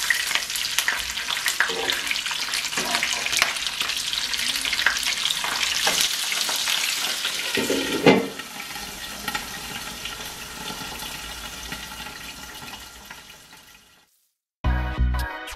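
Meatball and vegetable skewers sizzling in hot oil in a non-stick pan, with metal tongs clicking against them as they are turned. About eight seconds in, a glass pan lid clanks down, and the sizzling turns muffled and fades out. Music with a beat starts near the end.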